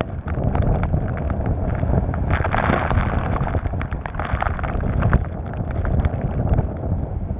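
Wind buffeting the microphone over the rush of water and spray splashing against the side of a boat running fast through choppy sea, with frequent short splashes.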